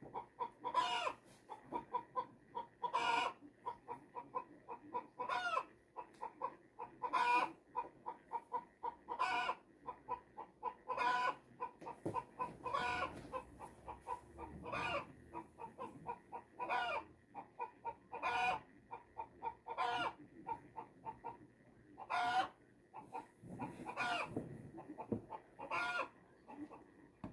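A flock of Silver Laced Wyandotte chickens clucking: a loud short call about every two seconds, with quick, softer clucks in between.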